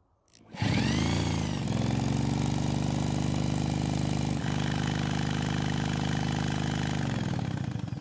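Power drill spinning a RedMax backpack blower engine over by its flywheel nut, with the recoil removed, to check for spark. It starts about half a second in, runs at a steady speed, and slows and stops near the end.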